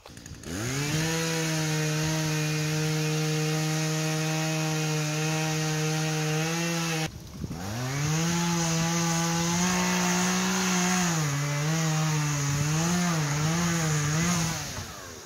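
Chainsaw cutting into a tree. It revs up to full throttle and holds steady, drops off sharply about halfway through and revs straight back up, and near the end its revs dip and recover several times under the load of the cut.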